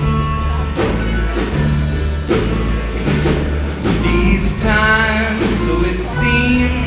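Live rock band playing an instrumental passage between sung lines: bass and drum kit keep a steady beat, and a wavering melodic line comes in about halfway through.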